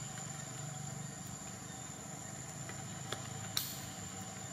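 Steady outdoor background sound: a low hum under a constant thin, high tone. Two short clicks come about three seconds in, half a second apart, and the second is the louder.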